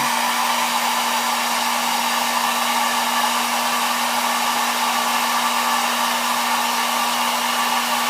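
Hot-air blower running steadily with a constant rushing whir and a steady hum, warming the phone's screen to soften the adhesive so the glass separates from the digitizer.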